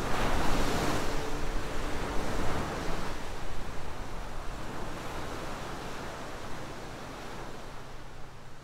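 Sea wash and wind, an even rushing noise that is loudest in the first few seconds and then slowly fades.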